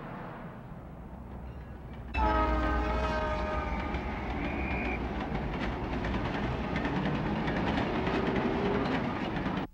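A train passing: a sudden horn blast about two seconds in, then a steady rumble and clatter of the cars that stops abruptly at the end.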